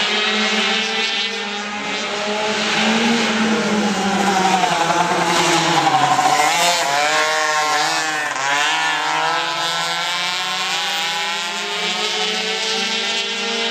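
Several minimoto racing bikes' small two-stroke engines buzzing at high revs as a pack goes round the track. About six seconds in they pass close and their pitch drops, then the notes cross and climb again as the riders accelerate away.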